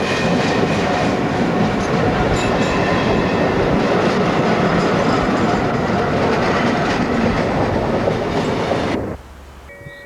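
Steam-hauled train of GNR 4-4-0 No. 171 running on the line, a loud, steady rush of locomotive and wheel noise on the rails. It cuts off abruptly about nine seconds in.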